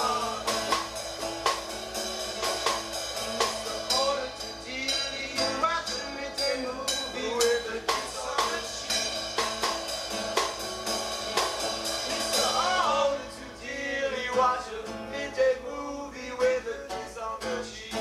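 Live acoustic band playing: banjo and acoustic guitar with a snare drum struck with sticks, and a man singing over them. The playing eases briefly about two-thirds of the way through, then picks up again.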